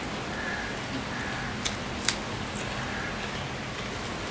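Eating rice by hand: fingers working rice on a plate while chewing, with two sharp clicks about half a second apart near the middle. A steady hiss of rain runs underneath.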